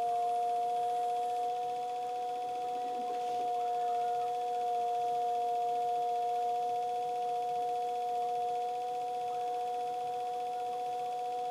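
Electric potter's wheel spinning, its motor giving a steady, unchanging whine.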